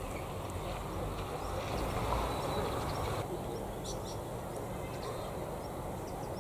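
Outdoor ambience: a steady low rumble of wind on the microphone with small birds chirping now and then. The background changes abruptly about three seconds in.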